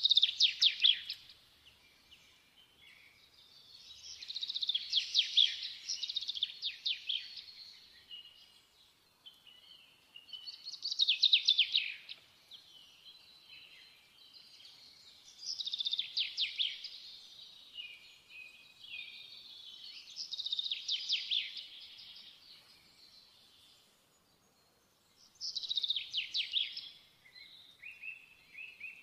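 A songbird singing: about six bursts of fast, high chirping trills, each a second or two long, coming roughly every five seconds.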